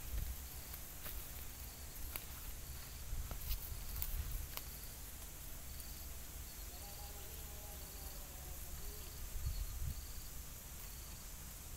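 An insect chirping in short, high pulses about once a second, over a low rumble and a few faint ticks.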